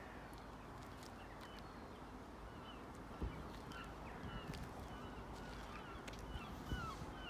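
Small birds chirping faintly: many short calls, several a second, over a steady low background noise.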